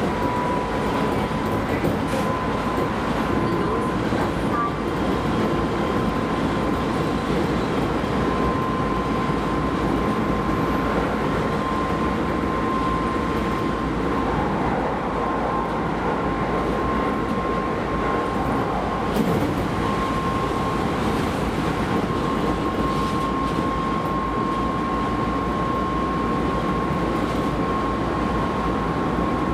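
Keisei Line rapid train running at speed, heard from inside the leading car: steady rail and running noise with a thin high whine that slowly rises in pitch.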